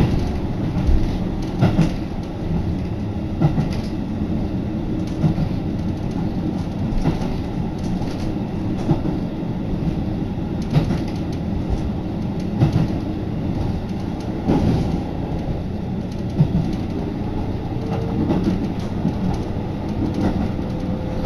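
Train running on the rails, heard from inside the carriage: a steady rumble with a clack from the rail joints about every two seconds. A faint rising whine comes in over the last few seconds.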